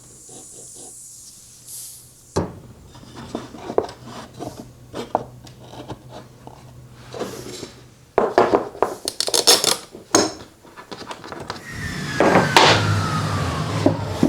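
Metal tools and sockets being handled and set into a steel tool chest drawer: scattered clicks and clinks with a sharp knock about two seconds in and a dense run of clinking in the middle. Near the end a falling scrape, like a tray or drawer sliding, under more clinking.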